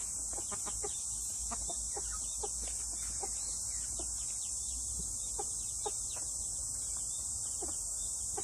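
Silkie chickens feeding, with short scattered clucks and pecks at the ground, over a steady high-pitched insect drone.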